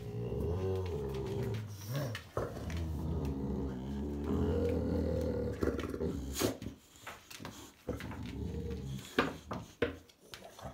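Boxer dogs growling low and long for about the first six seconds, then quieter, with several sharp clicks and knocks.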